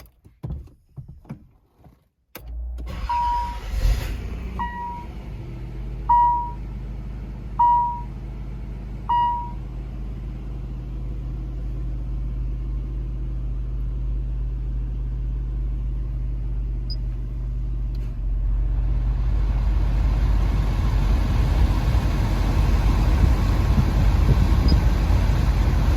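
Inside a 1988 Nissan 300ZX Turbo: a few clicks, then a steady low hum of the car running begins about two seconds in. An electronic chime beeps five times, evenly about a second and a half apart. Later a steady rush of air from the HVAC blower comes up and stays.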